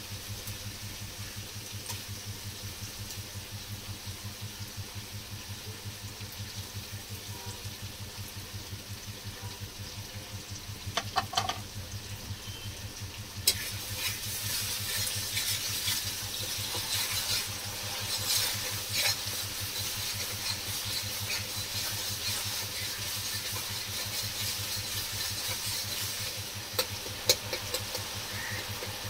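Onion-paste masala frying in oil in an aluminium wok over a low steady hum, with a few clicks about eleven seconds in. About halfway through the sizzling jumps suddenly louder as curd goes into the hot oil, then crackles on while it is stirred with a metal spatula.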